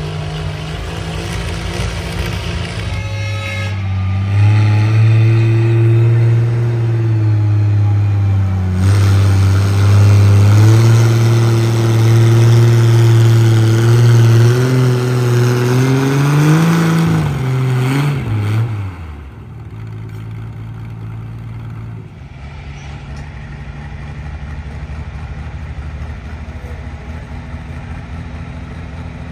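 A pulling vehicle's engine under heavy load as it drags a weight-transfer sled. It runs hard and steady, its pitch rising slightly near the end of the pull, then the throttle comes off about two-thirds of the way through and it drops back to a quieter steady idle.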